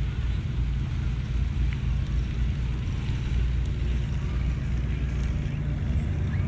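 Steady low rumble of wind buffeting the microphone, mixed with a motorboat's engine running in the harbour channel.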